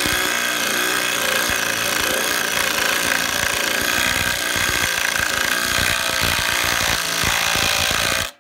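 DeWalt DCF887 brushless impact driver hammering steadily as it drives a lag screw into hard wood. It stops suddenly about eight seconds in, with the lag only about halfway in.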